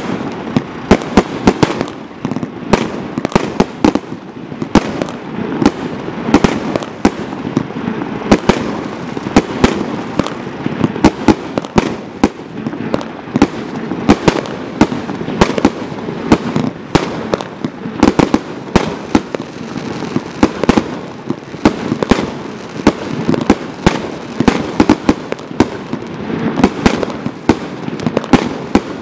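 Firework barrage cake (Primed Pyrotechnics Roll the Dice) firing without a break: sharp bangs several a second over a constant crackling hiss of bursting stars.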